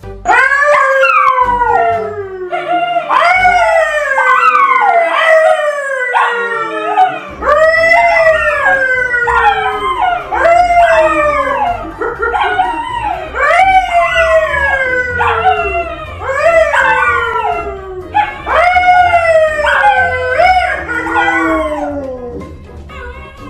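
A yellow Labrador and a brown poodle howling together with a man howling along: loud, overlapping howls, each rising briefly and then sliding down in pitch, one after another.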